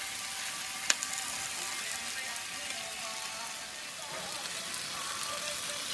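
Moose tenderloin steaks and vegetables sizzling on a gas grill's griddle plate, a steady crackling hiss, with one sharp click about a second in.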